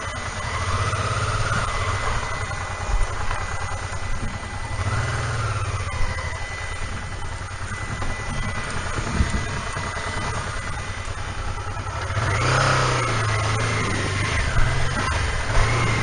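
Honda Deauville's V-twin engine running at low revs while the motorcycle is turned around at walking pace on a rough dirt track, the revs rising briefly about three times, with a few short knocks along the way.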